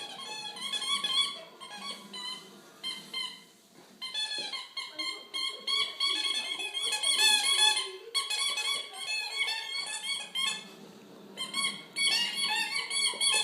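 Latex squeaky Easter-egg dog toy squeaking over and over as a dog chews on it, in fast runs of short, high squeaks. The runs ease off briefly about four seconds in and again about eleven seconds in.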